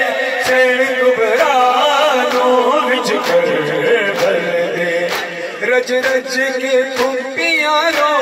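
A man chanting a noha (Shia lament) into a microphone over a PA system, his voice rising and falling in melismatic lines over a steady held tone. Sharp beats cut in at uneven intervals.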